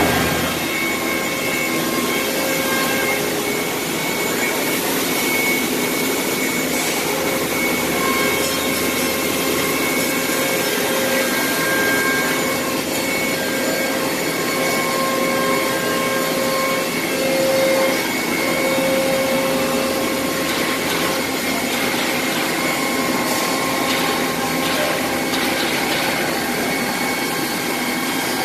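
CNC router spindle at 18,000 rpm routing a decorative pattern into a wooden door panel, with the vacuum hold-down pump running. It makes a steady machine noise with high whining tones that come and go, and short crackles in the last third.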